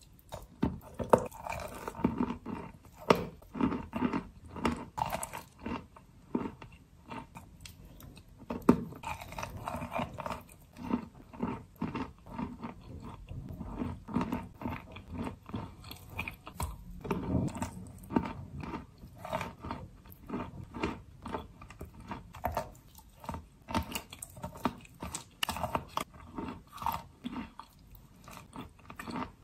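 A person biting and chewing a lump of wet green chalk paste close to the microphone: a dense, irregular run of short clicks and crunches, several a second, with no talk.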